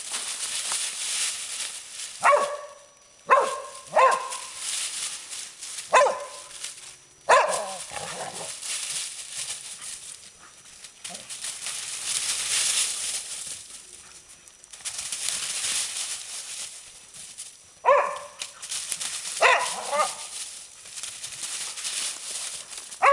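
Entlebucher mountain dogs barking in play: short barks, about five in the first eight seconds and a quick run of three or four near the end. Between the barks, dry leaves rustle steadily under running feet.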